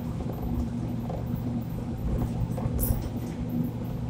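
Mumbai Monorail car running along its concrete beam, heard inside the cabin: a steady low rumble with a constant humming tone. A short high hiss comes about three seconds in.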